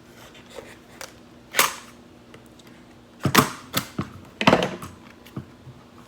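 Plastic and cardboard toy packaging being cut and pulled open: sharp snaps and crackles, one about a second and a half in, then a quick run of them in the second half.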